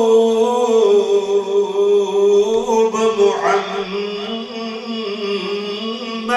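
A man chanting in a drawn-out melodic style, holding long notes that waver slowly in pitch.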